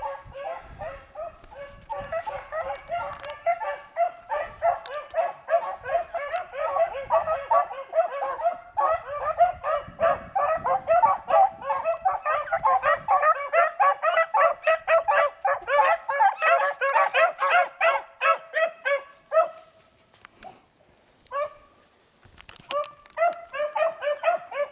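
A pack of beagles baying in full cry on a rabbit's trail, many hound voices overlapping in a dense chorus. About three-quarters of the way through the chorus breaks off, and then a few bays start up again near the end.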